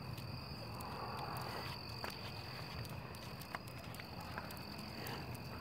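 Crickets chirring steadily with a continuous high trill, over quiet night ambience, with a few faint ticks.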